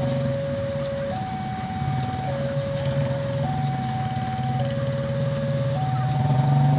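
Railway level-crossing warning alarm sounding a steady alternating two-tone signal, a lower tone then a higher one, each about a second long. Under it runs the low, steady hum of the diesel engine of the train standing at the platform.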